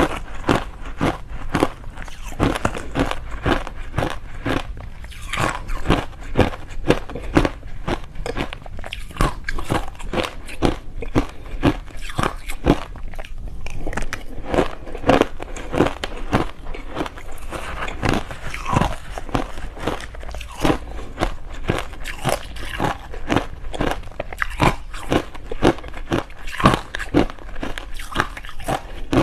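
Shaved ice topped with passion fruit pulp being bitten and chewed close up: a rapid, uneven run of crisp crunching cracks.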